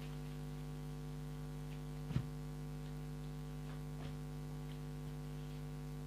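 Steady electrical hum, several fixed tones, with a single sharp click about two seconds in and a few faint ticks.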